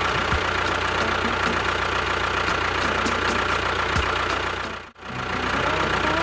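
A steady engine running sound with a faint regular ticking. It drops out briefly about five seconds in, then picks up again.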